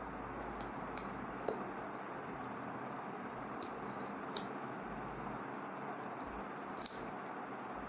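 Packaging handled by hand as a pen tablet is taken out of its box: scattered light clicks and crinkles over a steady background hiss.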